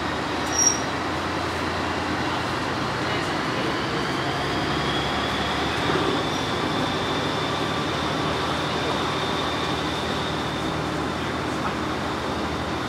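Steady running noise of a KiHa 40 diesel railcar heard from inside the car: engine and wheels rumbling on the rails, with a faint high whine that swells and fades in the middle. A single sharp click about a second in.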